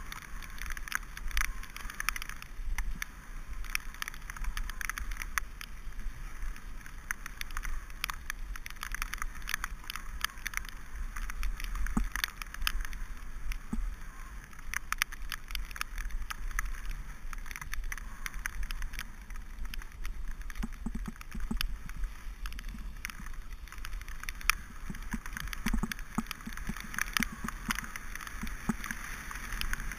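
Mountain bike riding over a wet gravel and dirt track: tyres crackling and splashing on the wet ground, the bike rattling over bumps with many sharp clicks, and a low wind rumble on the bike-mounted camera's microphone.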